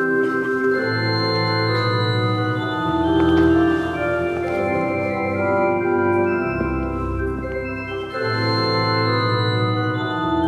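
Organ playing slow, sustained chords, with a deep bass note coming in around the middle.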